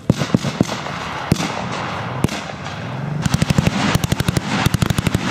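Blank gunfire: a few scattered single rifle shots, then from about three seconds in, several short rapid bursts of machine-gun fire.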